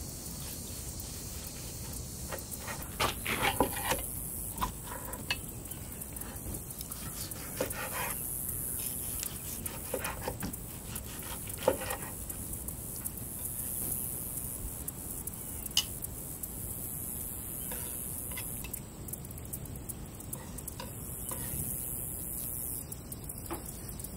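Chef's knife slicing through a thick grilled porterhouse steak and tapping on a wooden cutting board: scattered short taps and brief cutting strokes, with a few louder ones near the start and in the middle.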